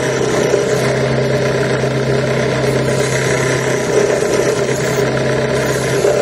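Benchtop drill press running steadily at its lowest speed, about 520 RPM, its diamond twist drill grinding into a stone bead to enlarge the hole, nearly through.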